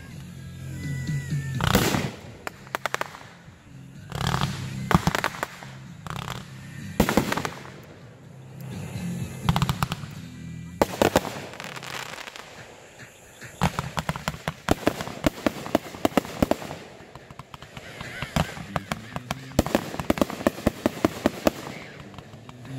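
Aerial fireworks going off: a run of separate loud launch-and-burst bangs, then, from about halfway, dense rapid crackling and popping as several effects break at once.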